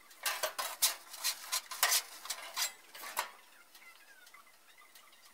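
Metal clattering and scraping: a quick run of sharp knocks lasting about three seconds, then only faint ticks.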